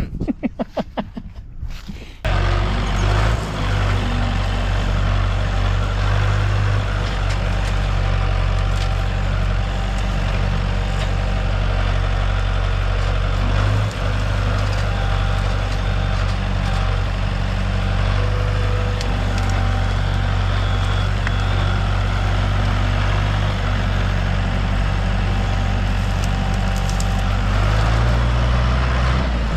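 A large engine running steadily close by, a deep, even drone. It cuts in abruptly about two seconds in and holds almost unchanged, with one brief dip about halfway through.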